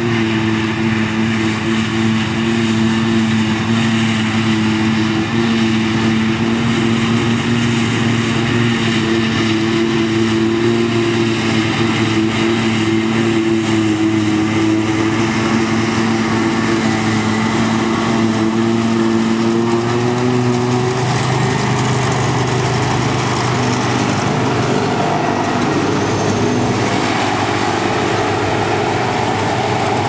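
New Holland FX60 forage harvester running under load, picking up and chopping grass for silage, a steady engine and machinery drone with a held whine on top. The whine fades about two-thirds of the way through while the engine noise carries on.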